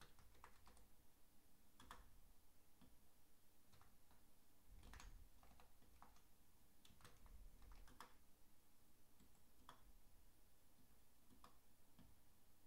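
Faint, scattered keystrokes on a computer keyboard: single clicks spaced irregularly, with gaps of up to about a second and a half between them.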